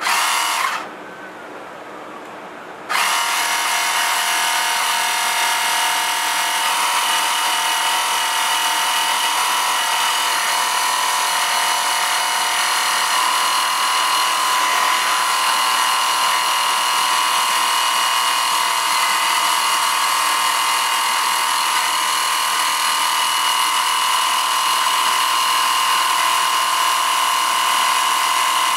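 Small 12-volt portable air compressor starting about three seconds in and then running steadily with a high motor whine, pumping air into a motorcycle tire to seat the bead. A short sound comes just before it, in the first second.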